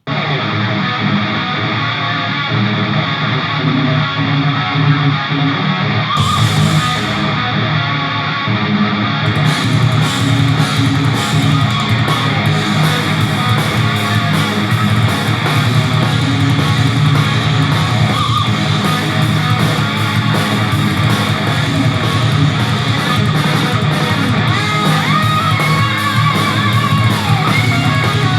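Guitar-driven rock music with strummed electric guitar and bass, played back over Edifier PrismaBT 2.1 Bluetooth speakers as a sound test.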